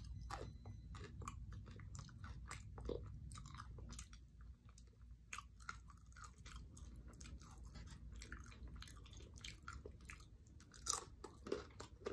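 A person chewing bites of a chicken tlayuda, its crisp toasted tortilla giving many small, irregular crunches and mouth clicks.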